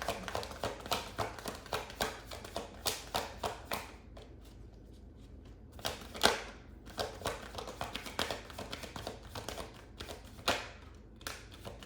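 Tarot cards being shuffled and handled: a rapid run of small card clicks and flicks for about four seconds, then scattered taps with one sharper slap about six seconds in, as cards are drawn and laid down.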